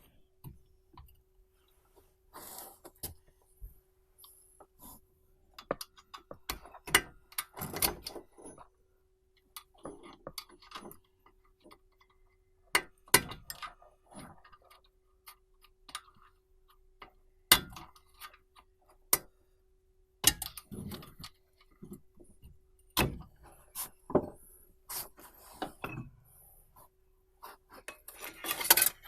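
Irregular sharp metallic clicks, knocks and short scrapes of hand tools and brake caliper parts being handled, over a faint steady hum.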